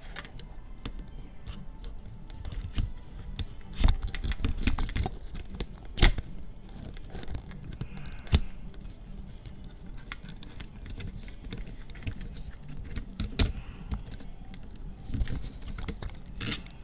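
Plastic clicks, knocks and scrapes from an Eivotor YX-3 condenser microphone and its mount parts being handled and fitted together, irregular, with a few louder knocks scattered through.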